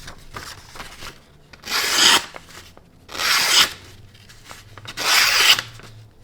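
Blaurock BRB3 folding knife with a Damasteel blade slicing through a sheet of paper: three separate rasping cuts, each about half a second long. The blade cuts very well.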